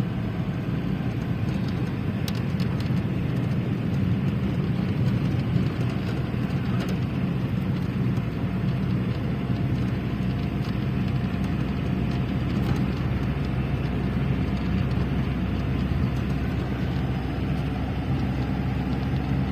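Steady road and engine noise of a moving car.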